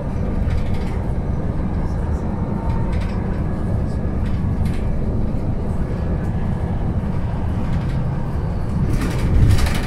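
Cabin noise inside a moving bus: a steady low rumble of the drivetrain and tyres on the road, with a louder jolt of noise about nine seconds in.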